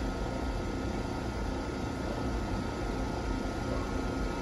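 Steady hum and fan noise of an E653-series electric train standing at the platform with its doors shut, its air-conditioning and auxiliary equipment running.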